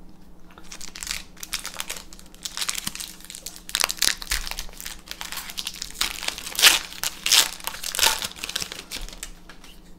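Foil wrapper of a Magic: The Gathering booster pack being torn open and crinkled by hand: a long run of crackles, loudest a little past the middle.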